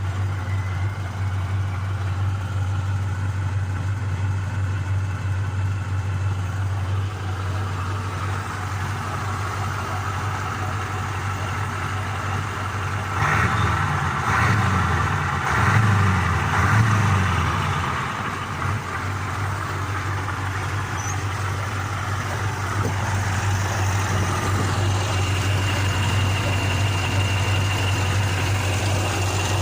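Turbocharged KamAZ truck diesel engine idling steadily after a turbocharger repair. It is revved several times around the middle, and a faint high whine can be heard in the last few seconds.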